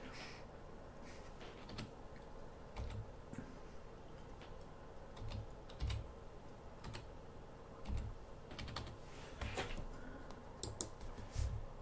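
Computer keyboard keys tapped one at a time, faint and irregular, as an eight-digit number is typed into a password field.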